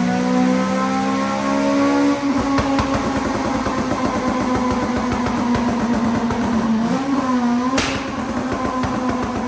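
Honda Civic Type R FN2's K20 engine running under load on the rolling road: it revs up over the first two seconds, then holds at a steady, rougher pitch. A single sharp crack comes near the end.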